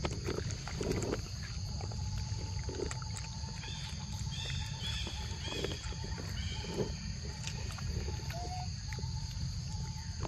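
A long-tailed macaque eating a ripe mango close to the microphone: irregular wet smacks and slurps of chewing and sucking at the fruit, about once a second. A steady high insect drone runs underneath, and a bird chirps briefly midway.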